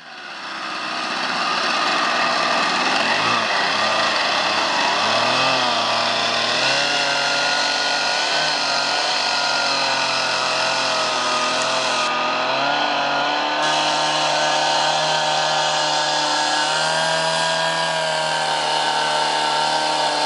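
A two-stroke chainsaw engine driving an outboard boat-motor attachment, running at high speed. Its pitch wavers up and down for the first several seconds, then holds steadier. The sound fades in over about the first second.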